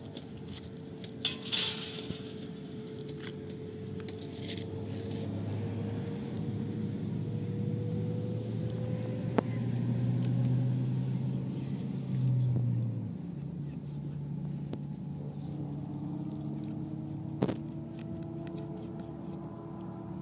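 A steady motor engine drone whose pitch drifts slowly. It swells to its loudest and then drops away about thirteen seconds in, before a higher drone takes over. A few sharp clicks come through over it.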